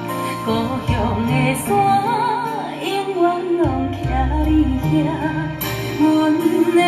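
Recorded Taiwanese-language ballad, a female singer over band accompaniment, played back through a pair of ALTEC 604-8G coaxial loudspeakers. A melody with vibrato moves over sustained chords and bass notes.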